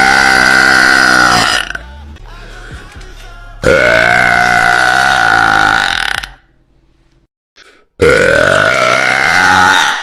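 A woman's very loud, long burps, three in a row, each held at a fairly steady pitch for about two seconds. The first is already going at the start. The second follows a short quieter gap, and the third comes near the end after a moment of silence.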